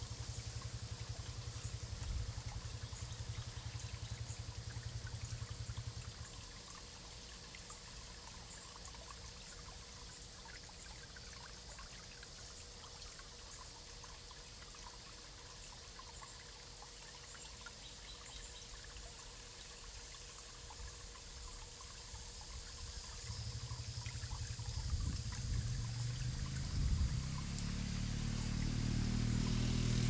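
Water trickling and pouring steadily, with many small ticks and splashes. A low rumble fills the first few seconds, and another builds up through the last several seconds.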